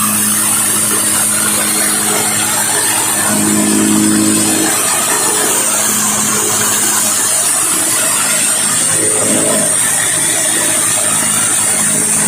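Pressure washer's engine running steadily under load, with the hiss of the water jet spraying.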